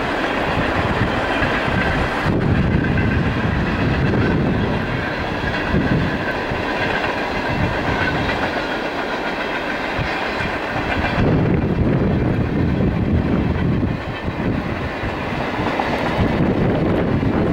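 Freight cars of a CSX freight train, autoracks, flatcars and tank cars, rolling past: steady steel wheel-on-rail rolling noise that keeps up throughout.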